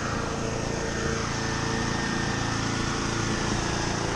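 A small engine running steadily at a constant speed, with no change in pitch.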